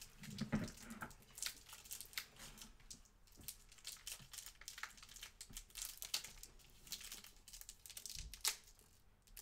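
Candy wrapper crinkling and tearing as it is opened, a run of small irregular crackles, with one soft low thump about eight seconds in.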